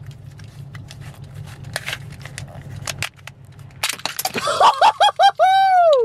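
A cheap plastic Rubik's cube clicking and grinding as its faces are twisted. About four seconds in it bursts apart with a crack, breaking into pieces, and loud, high-pitched cries of surprise follow at once. A low hum of the car runs underneath.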